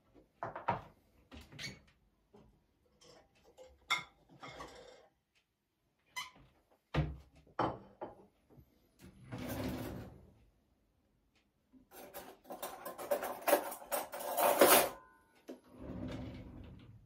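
Kitchen handling noises: clicks and knocks of a plastic food container, a plate and utensils being moved on a counter, with a busier, louder stretch of clatter about twelve seconds in.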